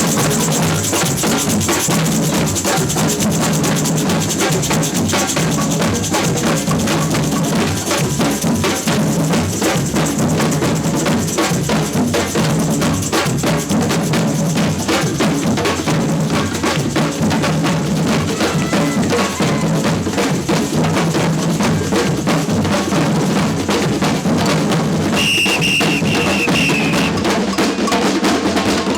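Samba percussion band (batucada) playing a driving funk groove on bass drums, snare drums and other hand percussion. A long, high whistle blast sounds near the end.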